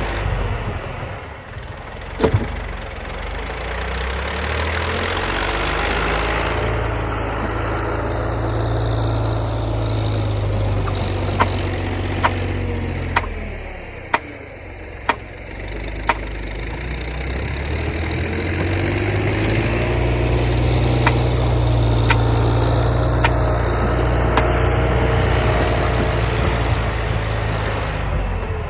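John Deere backhoe's diesel engine revving up and holding, dropping back briefly about halfway through, then revving up again, with a number of short sharp knocks over it.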